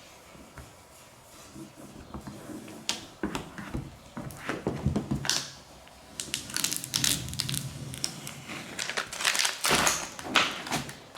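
Crinkling and scraping of vinyl decal and its backing paper being handled and smoothed onto the car body, in irregular bursts that grow louder and busier from about three seconds in.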